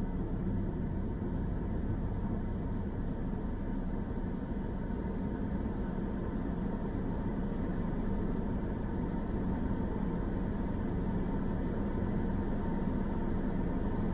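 Steady road and engine noise of a car driving, heard from inside the cabin.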